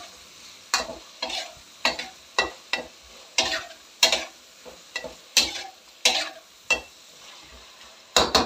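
Flat metal spatula scraping and turning mutton liver and chopped onion in a large metal wok, in a steady rhythm of about two strokes a second with a short pause near the end, over frying oil sizzling quietly between the strokes.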